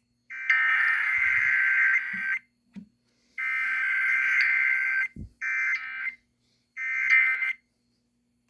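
Emergency Alert System SAME digital data bursts: rapid two-tone data sent in four separate bursts, two of about two seconds, then two shorter ones, with about a second of silence between them.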